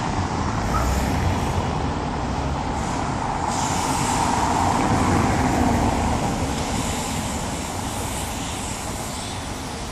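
Street traffic: cars driving past on cobblestones, with a steady rumble and tyre noise that swells as a vehicle passes about halfway through.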